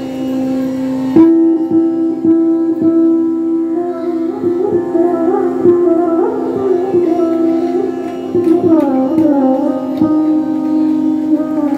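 Indian classical instrumental background music: a plucked string instrument playing a winding melody over a steady drone, with the plucked notes starting about a second in.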